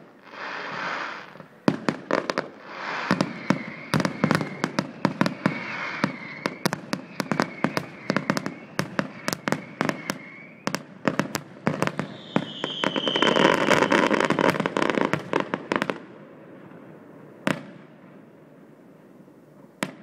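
Fireworks display: rapid sharp bangs over dense crackling, with thin whistles. It builds to a thick, loud burst of crackling about twelve seconds in, then dies away after about sixteen seconds, leaving only a couple of single bangs.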